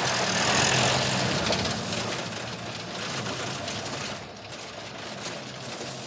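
Radio-drama sound effect of a car engine running as the car drives along, with a steady low hum under a wash of road noise that swells about a second in and then settles lower.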